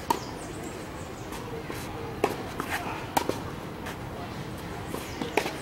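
Tennis rally on a clay court: a series of sharp pops from racket strikes and ball bounces, spaced irregularly about a second or two apart.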